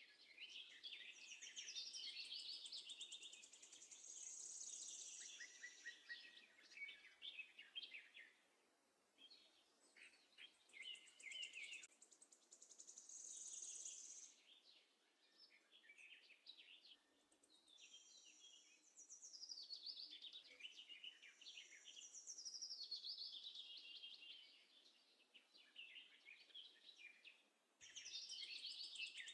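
Faint birdsong: several birds chirping and trilling over one another in a high chorus, with a few short lulls.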